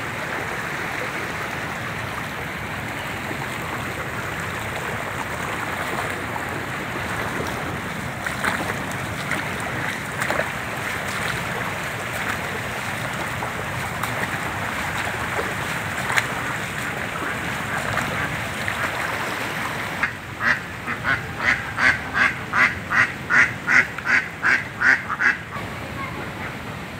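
Seawater flooding through house compounds, rushing and pouring over a compound wall as a steady hiss of water. About twenty seconds in, a rapid run of about fourteen short calls, about three a second, lasts some five seconds.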